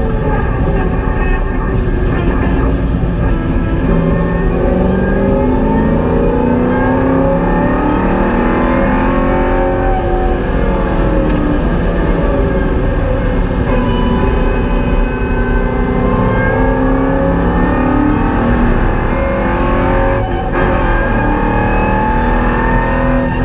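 Holden VY Commodore's LS1 V8 heard from inside the cabin at racing speed, its note rising and falling again and again through the revs, over a steady road rumble, with a brief dip about twenty seconds in.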